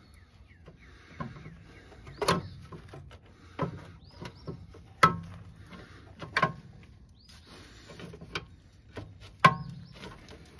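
Breaker bar and socket clanking against the rear shock's lower mounting bolt and axle bracket as they are fitted and levered: irregular sharp metal knocks, some with a brief ring, the loudest about halfway and near the end.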